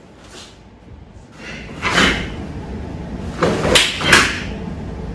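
A handful of sharp slaps and thuds from karate techniques: arms meeting in blocks and strikes, karate gi cloth snapping and bare feet landing on foam mats. The loudest hits come in a quick run about three and a half to four seconds in.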